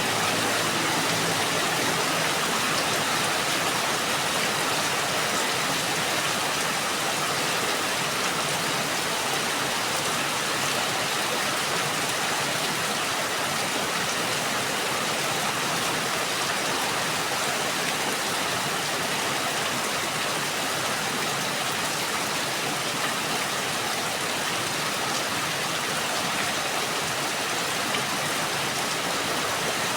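Steady, even rain falling, a continuous hiss with no change in strength.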